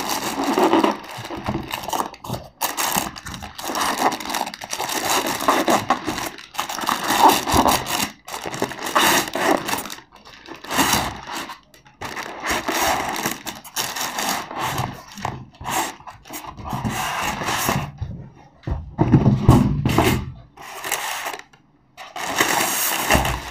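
Cardboard box and styrofoam packing scraping and rubbing in irregular bursts as a packed speaker set is slid out of its box, with a heavier thump about four-fifths of the way through.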